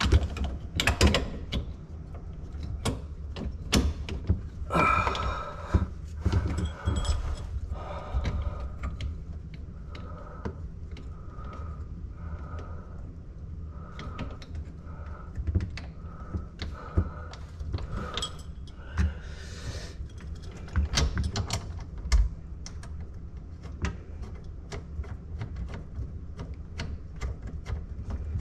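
Scattered clicks, knocks and light clatter of plumbing parts and tools being handled and fitted under a kitchen sink, busiest in the first few seconds and again around twenty seconds in.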